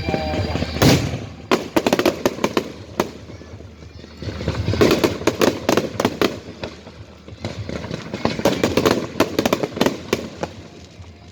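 Fireworks going off: a loud bang just under a second in, then three clusters of rapid crackling pops.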